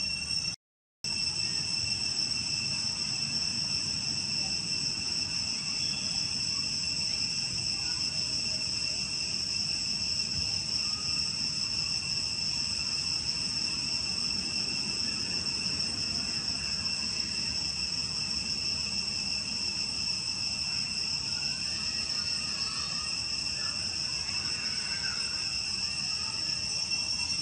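Insects droning in a steady, unbroken high-pitched buzz. The sound cuts out completely for a moment about a second in.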